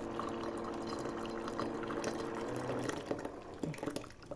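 Hot water pouring into a cup, a steady filling sound that stops about three seconds in, followed by a few light knocks.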